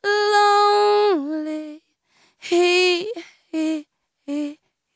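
A woman's voice singing alone with no instruments: a note held about a second that then slides down in pitch, followed by a few shorter phrases with silent pauses between them.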